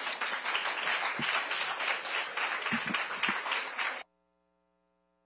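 Audience applauding, a dense patter of clapping that cuts off suddenly about four seconds in.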